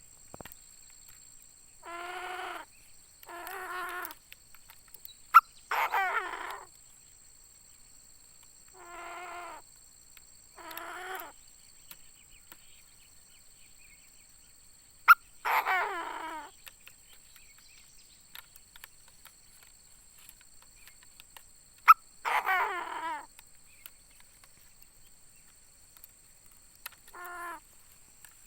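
Decoy Chinese francolin calling, a string of harsh, ringing calls about half a second to a second long, some fainter and some louder. Each of the three loudest calls is preceded by a sharp click.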